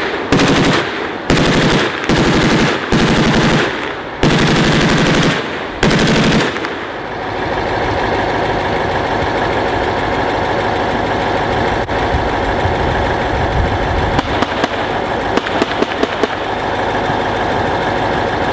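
Machine-gun fire in several long, rapid bursts through the first six seconds or so. It gives way to a steady loud rumble with scattered sharp gunshots cracking over it.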